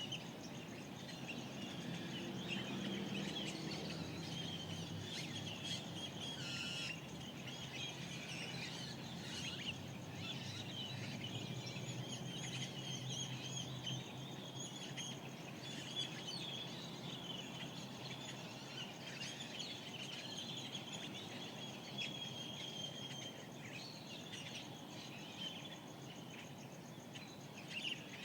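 Dawn chorus of desert birds: many short chirps and calls overlapping without a break, over a faint low steady hum.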